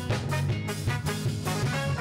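Live band playing an upbeat instrumental passage between sung lines: drum kit keeping a steady beat under electric guitar and held instrumental notes.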